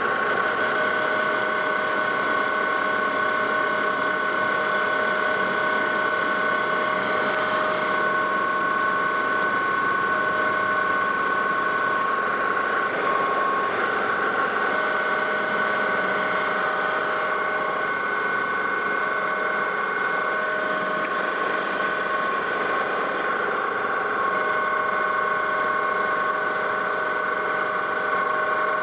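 Metal lathe running steadily with a steady whine while cutting aluminum stock.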